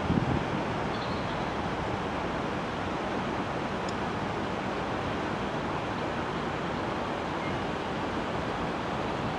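Steady rushing noise with no clear pitch or rhythm. A brief low thump comes right at the start.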